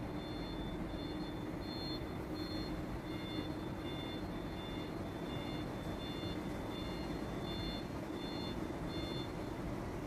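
Short high electronic beeps repeating about two to three times a second at a few alternating pitches, over a steady low hum. The beeps stop shortly before the end.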